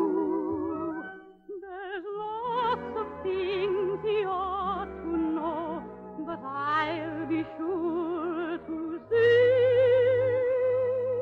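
Classically trained voice singing with wide vibrato over an orchestra, in a musical number from an operetta. About nine seconds in it swells onto one long held note.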